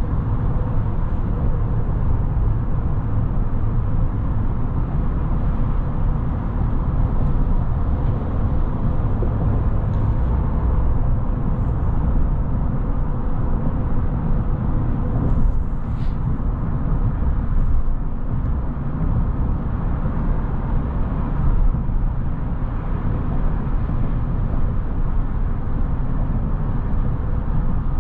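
Steady road and wind noise inside the cabin of a 2022 GMC Sierra 1500 pickup cruising at highway speed.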